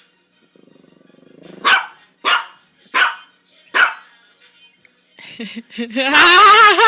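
Pet dog giving a short low growl, then barking four times in sharp single barks, riled by the play. Near the end a loud, wavering, rising voice starts.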